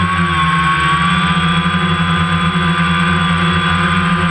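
Multirotor drone's electric motors and propellers humming steadily overhead, one held pitch with a high whine above it, as picked up by the aircraft's own camera.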